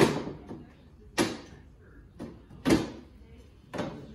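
A hand tool scraping along the wooden bars of an old window sash in four short strokes about a second apart, each starting sharply and fading quickly.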